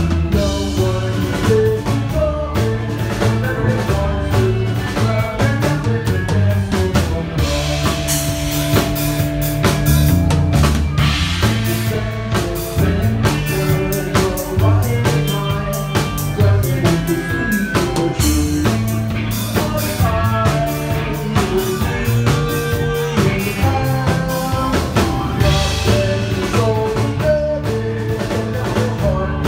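A rock band playing live: drum kit, electric bass and electric guitar in a loud, driving instrumental passage.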